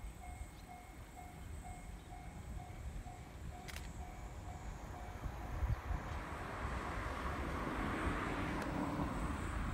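JNR Class DE10 diesel-hydraulic locomotive hauling a rake of 12-series coaches, approaching: its V12 diesel engine and the train's running noise grow steadily louder from about halfway through. A low rumble of wind sits under it throughout.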